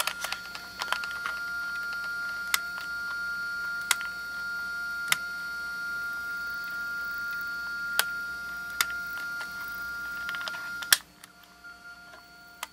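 Sony Walkman WM-FX50 cassette mechanism clicking in reverse play, single sharp clicks every second or two over a faint steady motor hum, while capstan and take-up reel stay stalled: the owner suspects a bad drive belt. Hum and clicks stop about eleven seconds in.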